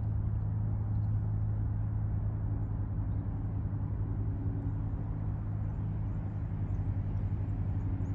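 A distant engine drones steadily as a constant low hum, with no rise or fall.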